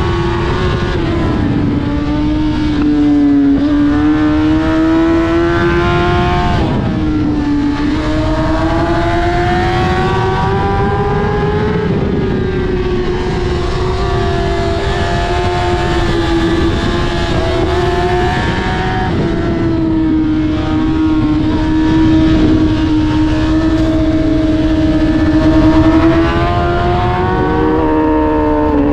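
Sport bike engine running at sustained high revs, its pitch drifting slowly up and down with the throttle, over a steady rush of wind noise.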